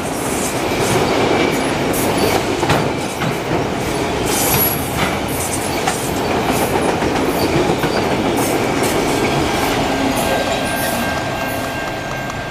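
Freight train's autorack cars rolling past at trackside: a steady rumble of steel wheels on rail with scattered sharp clicks, easing off a little near the end as the last car passes and the train moves away. A thin steady whine comes in near the end.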